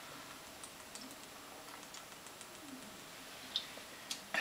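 A man gulping from a 40 oz glass bottle of malt liquor, heard as faint scattered clicks and small swallowing sounds over quiet room hiss, with a short sharper sound near the end as he stops drinking.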